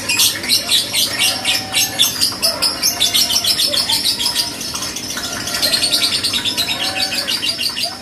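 Lovebird singing actively (gacor): a long, unbroken run of rapid high chattering chirps, several a second, dipping slightly in the middle before picking up again.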